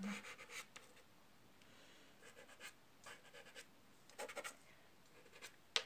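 Soft pastel stick scraping over rough paper in short strokes, faint and coming in several brief bursts, with one sharp click near the end.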